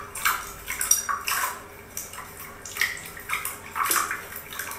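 Hands squeezing and pressing a water jiggly slime in a bowl, making irregular wet squelches and crackles, several a second.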